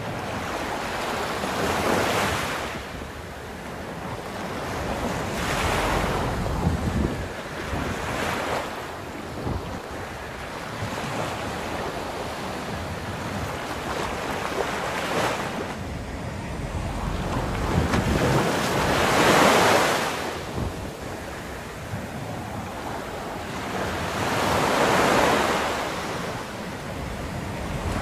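Sea surf breaking on a sandy beach, the wash swelling and fading in about six surges with the loudest about two-thirds of the way through, over a low rumble of wind on the microphone.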